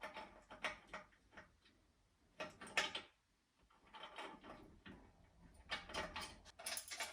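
Hand tools fastening the bolts and nuts of an intercooler's mounting brackets: irregular bursts of clicking and scraping in a few groups, with short pauses between.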